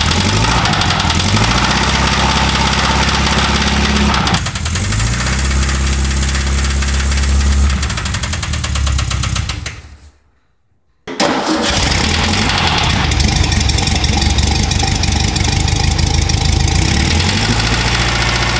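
A VW 1200cc 40 hp air-cooled flat-four engine running and being revved, its pitch rising and falling several times, with a knock that the owner says definitely sounds like a rod knock. About ten seconds in the sound dies away to near silence for about a second, then the engine is heard running again.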